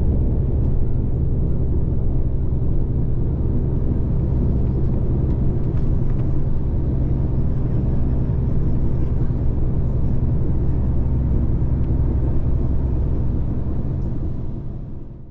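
Steady low rumble of a moving vehicle heard from on board, fading out near the end.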